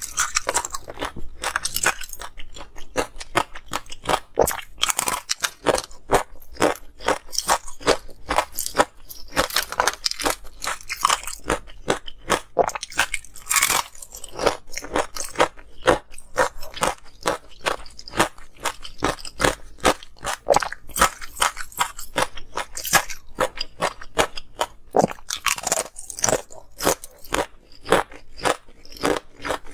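Close-miked crunching of thin ice being bitten and chewed: a dense, irregular run of crisp crunches.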